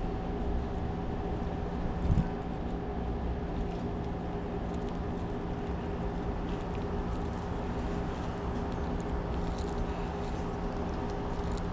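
Small screws being driven by hand into a deadbolt lock: a soft knock about two seconds in, then a few faint metallic ticks, over a steady background hum.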